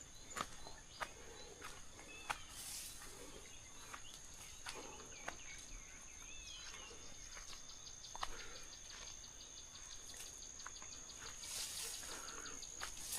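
Outdoor rice-field ambience: a steady high-pitched insect drone, with scattered bird chirps and calls and a quick run of repeated chirps about seven seconds in.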